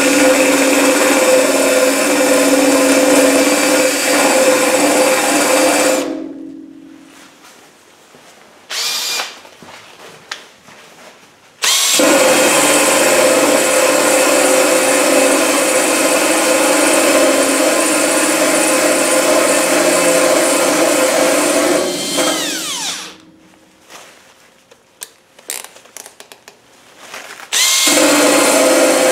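Cordless drill spinning an 80-grit nylon abrasive wheel against painted sheet steel, grinding paint out of a body-panel crease. It runs in spurts: about six seconds, a brief blip, then a long run of about ten seconds that winds down with a falling whine, and it starts again near the end.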